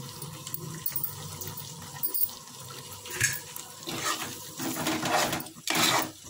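Masala brinjal curry simmering in a metal pot on the stove, a watery bubbling hiss, with a few louder sputtering spells in the second half.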